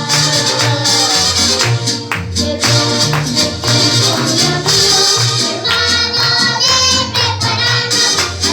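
Music: a song with singing over a steady percussive beat.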